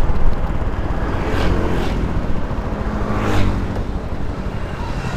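Motor scooter running along a street, heard from the rider's seat with heavy wind rumble on the microphone. There are brief louder swells about a second and a half in and again near three and a half seconds.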